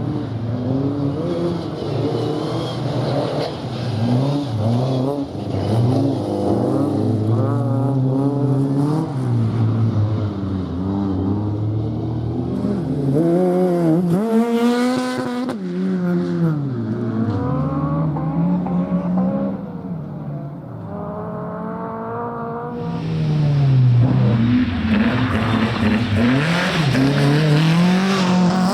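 Rally car engine revving hard on a special stage, its pitch climbing and dropping again and again through gear changes and lifts. From a little past two-thirds of the way in it gets louder, with a rushing noise over the engine as the car comes close.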